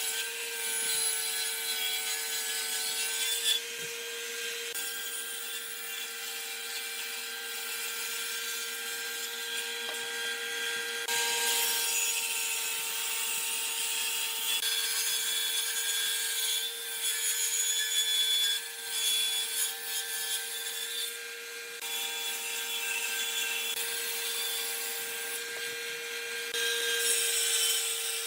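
An electric power tool runs with a steady whine while it works wood, with a loud rasping, scraping noise on top. The sound changes abruptly a few times.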